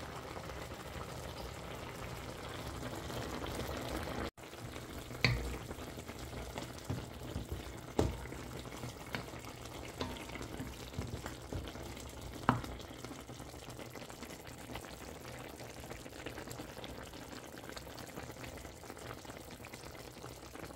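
Chicken, string bean and chili-leaf broth bubbling steadily in a steel wok, with a brief break in the sound about four seconds in and a few sharp clicks around five, eight and twelve seconds in.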